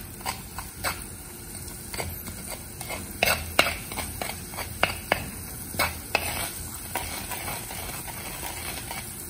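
Spoon stirring and scraping hot oil with mustard seeds, cumin, curry leaves and green chillies in a clay pot, with scattered sharp clicks over a low sizzle. The oil is only just hot enough for the seeds to begin to crackle.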